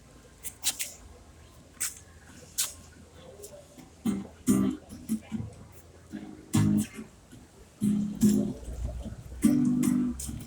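A few light taps and clicks, then a guitar strummed in short rhythmic chord strokes from about four seconds in, as the intro to the next song.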